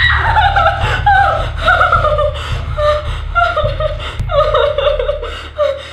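A woman sobbing hard, a run of short, high wailing cries that fall in pitch, broken by catches of breath.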